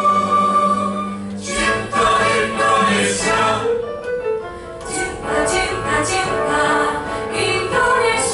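Mixed choir of women's and men's voices singing together into handheld microphones. A held note breaks off about a second in, and the singing moves on in shorter phrases.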